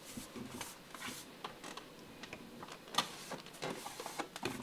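Thin embossed tin backsplash panel pressed flat against the wall by hand: faint scattered clicks and light taps of the metal, with a sharper click about three seconds in.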